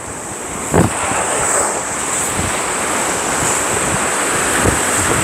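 Sea surf breaking and washing up a sandy beach, the rush of water building from about a second in, with wind buffeting the microphone.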